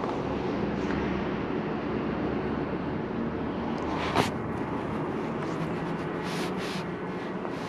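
Steady background noise inside a large stone church, with one sharp click about four seconds in.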